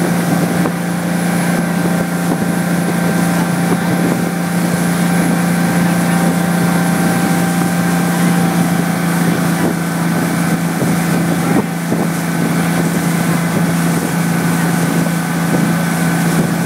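Parasail tow boat's engine running steadily at speed, a constant low hum, with rushing water from the wake and wind on the microphone.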